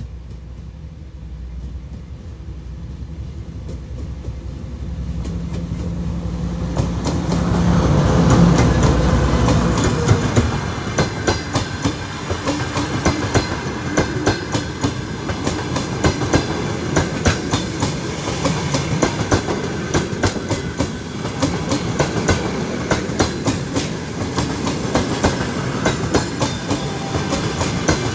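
TEP70BS diesel passenger locomotive approaching and passing, its diesel engine rumble growing and loudest about eight seconds in. After that, passenger coaches roll by with a rapid, continuous clicking of wheels over the rail joints.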